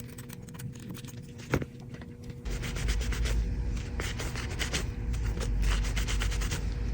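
Rapid, repeated scraping and rubbing strokes of a tool working caked grime off an iPhone, starting about two and a half seconds in, after a single sharp click about a second and a half in.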